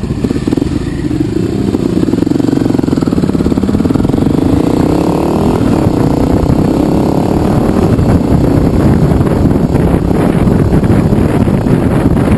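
Motorcycle engine accelerating, its pitch rising, dropping back and rising again as it pulls up through the gears, with wind noise building on the microphone as the bike gathers speed.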